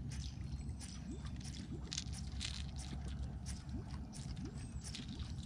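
Water lapping and gurgling against a boat hull over a low steady rumble, with scattered small clicks and rustles of a caught bass and its lure being handled.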